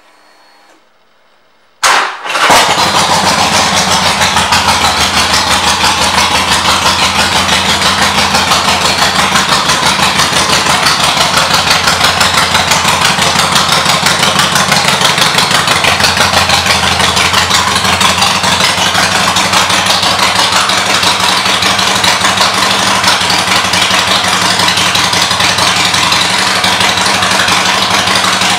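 2013 Harley-Davidson Sportster 1200 Custom's air-cooled V-twin with aftermarket exhaust pipes, started about two seconds in. It catches at once and settles into a steady, loud idle with a fast, even pulsing beat.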